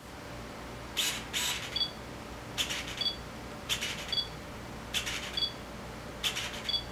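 The in-body screwdrive autofocus motor of a Pentax K-50 drives a DA L 18-55mm WR kit lens in live view, making five short whirring bursts about a second apart. Each burst ends in the camera's short, high two-note focus-confirmation beep.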